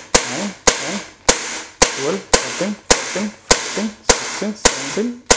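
Umarex Beretta M9A1 CO2 blowback BB pistol firing semi-automatically, one sharp crack per trigger pull, about two shots a second and about ten in all.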